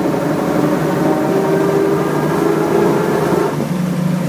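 1928 Graham Brothers truck's engine and drivetrain running as it drives along at low speed. The note steps down about three and a half seconds in.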